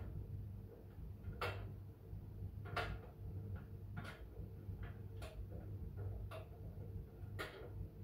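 Miele W1 front-loading washing machine's drum tumbling a load of laundry: a steady low hum with a light click or knock about once a second as the drum turns.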